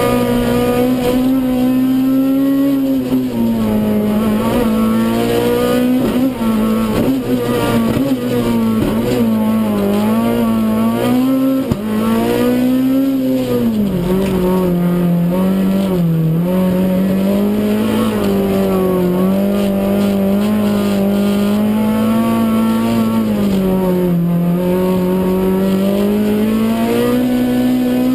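Renault Clio Kit Car rally engine at high revs, heard from inside the stripped, roll-caged cabin: the engine note keeps rising and falling through the gears and corners, with a few brief dips in loudness.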